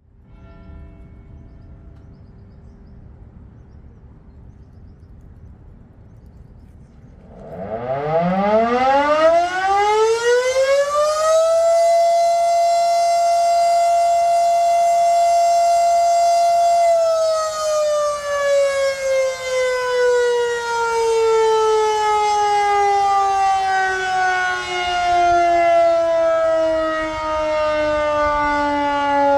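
Darley Model 5 outdoor warning siren sounding its daily noon test. About seven seconds in it winds up, rising in pitch to a steady single-tone wail, holds for about five seconds, then slowly winds down with a falling pitch.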